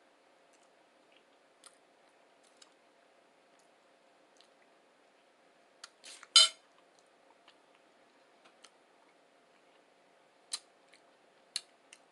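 Close-miked eating sounds from a person chewing a breakfast burrito: scattered wet mouth clicks and smacks, with a louder cluster of clicks about six seconds in and a few sharper ones near the end.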